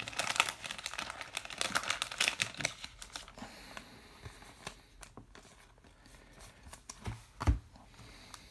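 Trading cards being handled and a card-pack wrapper crinkling: dense crinkling and card clicks for the first three seconds, then quieter scattered rustles and a soft thump near the end.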